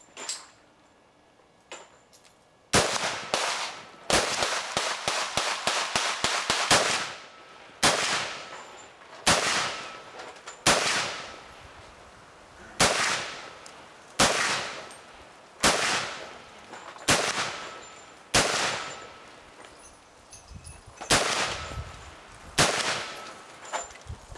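M10 rifle, a 7.62 mm M4-style rifle, firing live rounds. One shot, then a quick string of about ten shots, then single shots about every one and a half seconds, each with a ringing echo.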